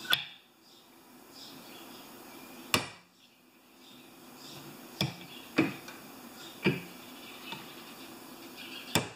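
Hammer tapping a punch to seat a Welch plug in a Briggs & Stratton carburetor body: about six light, sharp metal taps, spaced irregularly.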